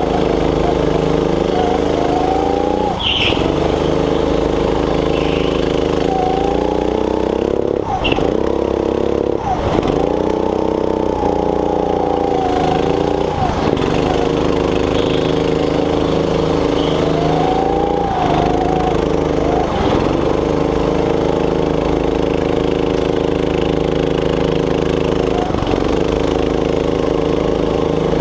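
Onboard sound of a go-kart engine running hard through a race. Its pitch drops briefly and climbs back about half a dozen times as the driver lifts off for corners and accelerates out again.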